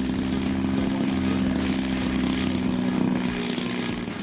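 Radio-controlled model warbird's engine running at a steady speed on the ground, one even, unchanging engine note.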